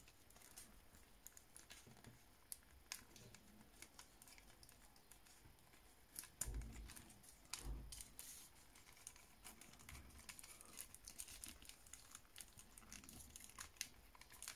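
Faint rustling and crinkling of an action figure's costume as it is pulled and worked off the body by hand, with scattered small ticks and a couple of dull bumps about halfway through.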